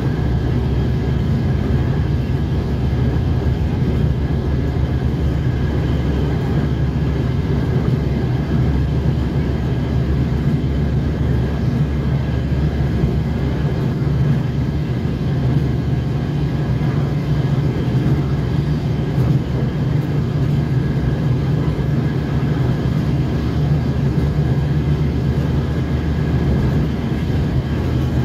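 Inside a DR1A diesel multiple unit running at steady speed: a constant low diesel-engine drone mixed with the rumble of wheels on the track, heard through the carriage.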